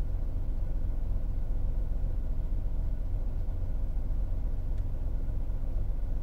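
Steady low rumble with a faint steady hum, unchanging throughout.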